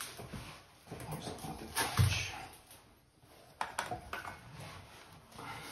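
Drain assembly being hand-tightened into a porcelain pedestal sink: rubbing and creaking of the threaded drain nut, with scattered clicks and knocks against the basin and one loud thump about two seconds in.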